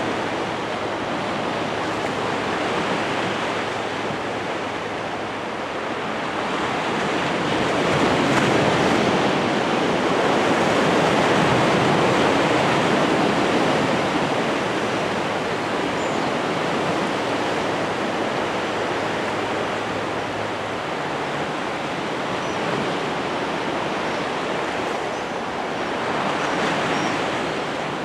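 Sea surf rushing steadily, swelling louder for several seconds in the middle, with a faint low hum under it that stops about three-quarters of the way through.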